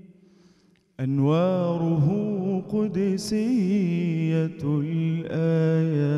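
A male munshid sings an unaccompanied Arabic religious ibtihal (Ramadan supplication) into a microphone. The last note of the previous line dies away into a short near-silent pause, and about a second in he begins a new, richly ornamented phrase with wavering, melismatic pitch.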